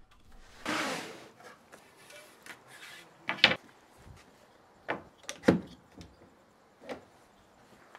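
Wood and a one-handed bar clamp handled on a workbench: a brief scrape of wood sliding on the bench near the start, then a few separate sharp clicks and knocks as the clamp is set against the bench edge and squeezed tight on a wooden strip.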